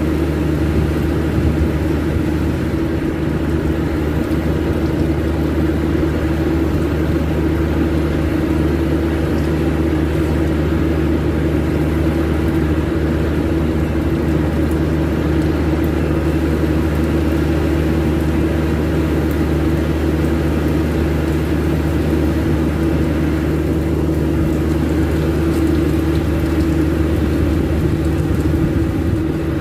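Steady machinery drone with a constant low hum and a steady mid-pitched tone, unchanging in level.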